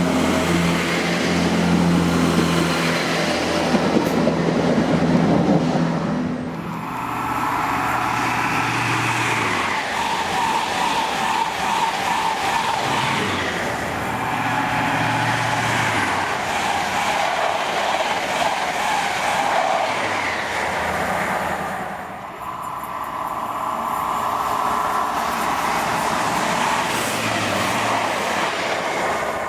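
Diesel passenger train passing at speed: a low engine drone for the first several seconds, then a steady rush of wheels on the rails as the carriages go by.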